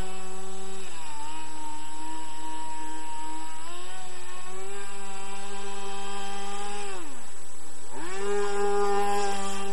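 RC model airboat's .61-size engine and air propeller running at high revs with a high-pitched whine. The pitch drops about a second in and climbs back a few seconds later, then falls away sharply near the seven-second mark and revs back up a second later as the throttle is worked.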